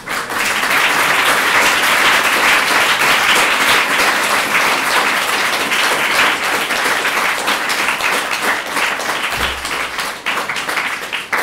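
Audience applauding: dense, steady clapping that begins abruptly and thins toward separate claps near the end.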